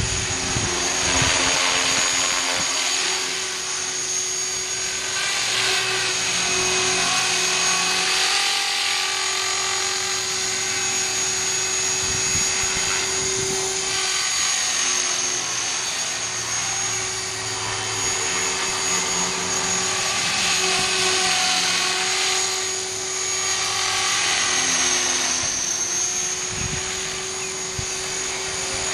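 Align T-REX 450SE v2 electric RC helicopter in flight: a steady high whine of its electric motor and drive over the hum of the spinning rotor, the pitch and loudness wavering gently as it manoeuvres.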